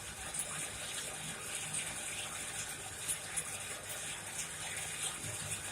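Red-hot steel knife blade quenching in a quench tank: a steady sizzling, bubbling rush with scattered small crackles as the blade hardens.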